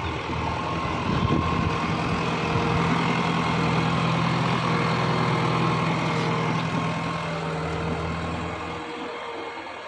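JCB 3DX backhoe loader's diesel engine running steadily, with a few knocks about a second in; the engine sound fades out near the end.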